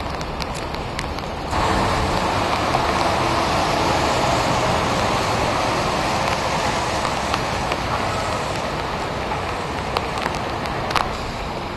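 Steady rain falling on wet pavement, an even hiss that gets louder about a second and a half in, with scattered drip ticks and one sharper tap near the end.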